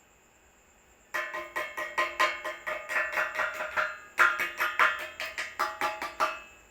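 A rapid run of sharp knocks, about four a second, each with the same short ringing pitch; it breaks off briefly about four seconds in, then resumes and stops just before the end.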